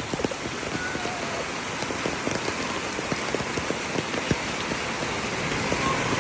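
Heavy rain falling, with many separate drops striking close by as sharp ticks over a steady hiss.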